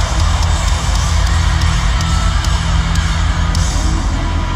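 Live rock band playing loud through an arena PA: distorted electric guitar over heavy bass and drums, heard from high in the stands.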